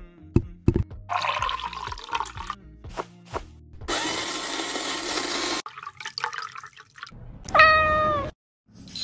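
Light clicks and knocks, then a countertop blender running for about two seconds. Near the end comes one loud, drawn-out cat meow.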